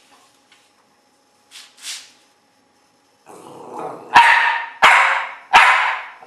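Small Coton de Tuléar dog barking three times, sharp and evenly spaced about two-thirds of a second apart, after a rising low grumble of about a second. It is barking out a count in answer to a letter card held up in front of it.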